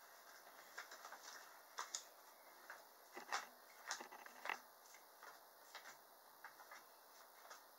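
Near-silent room tone with faint, irregular clicks and taps, a few of them close together in the middle.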